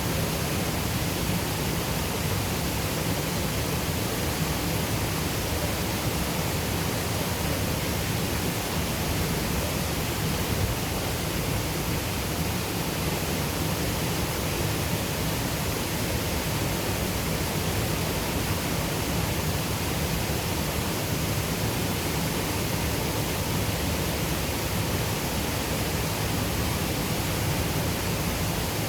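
Rushing water of a Highland river pouring over a waterfall: a steady, unbroken roar.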